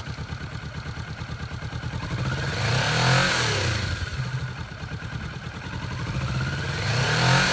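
Kawasaki Vulcan S 650cc parallel-twin engine idling with a steady pulse, revved twice with a blip of the throttle, about three seconds in and again near the end, the pitch rising and falling back each time.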